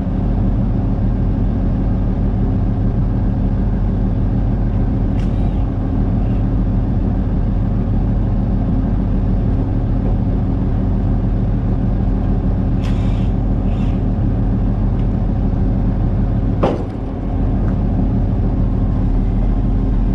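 Vehicle engine running with a steady low drone, with a few short knocks and clicks.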